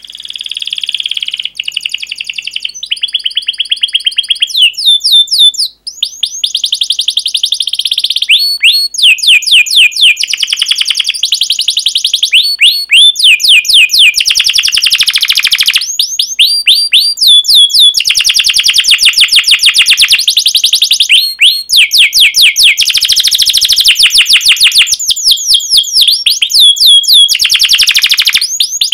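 Domestic canary singing a long run of rapid trills and repeated sweeping, high-pitched notes, phrase after phrase with only short breaks between them.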